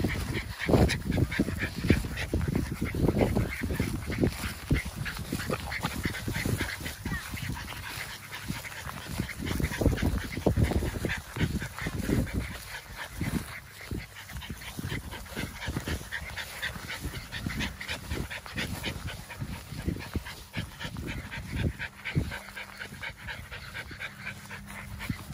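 American bully puppies whimpering and yipping in many short, irregular cries, over a low, uneven rumble.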